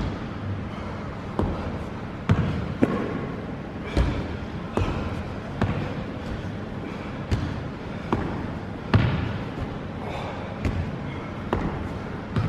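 Feet landing on a padded box and a wooden floor during box step-ups, giving irregular thuds about once a second.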